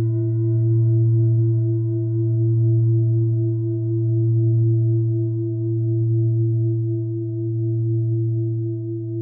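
A sustained, ringing drone of several steady pitches, the lowest the strongest, with a quick wobble in one of its tones and a slow swell and ebb in loudness about every two seconds.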